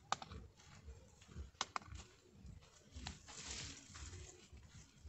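Faint footsteps crunching on a dry, grassy dirt trail, with irregular rustling and a few sharp clicks and snaps.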